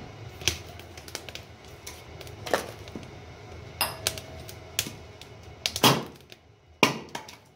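Freshly lit softwood fire crackling inside a Newmac wood stove's closed firebox: irregular sharp snaps and pops over a low steady background, the fire catching well.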